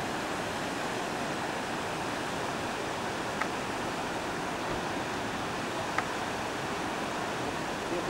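Steady rushing noise, even and unchanging, like running water or wind, with a few faint short clicks.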